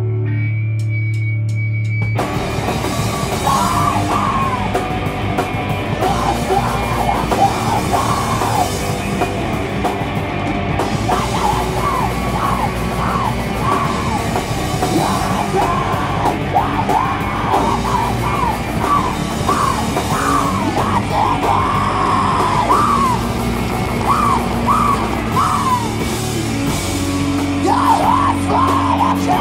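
Live heavy rock band: a held, droning chord, then about two seconds in the whole band comes in loud with distorted guitars and drums, a voice yelling over it.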